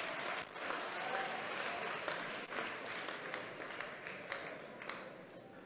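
Audience applauding, dense and steady at first, then thinning and dying away near the end.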